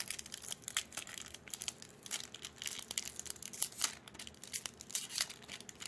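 Crinkling and tearing of a foil trading-card pack wrapper, handled in many short, sharp crackles as it is worked at and pulled open: the wrapper is resisting being torn open.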